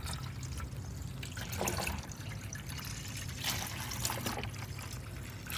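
Distilled water pouring in a steady trickle into a plastic bottle of concentrated Dexcool coolant, filling it to a half-and-half mix.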